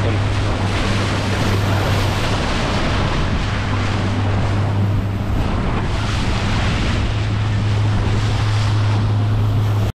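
A boat's motor running steadily with a low, even hum, under heavy wind noise on the microphone and water rushing and splashing against the hull in a light chop.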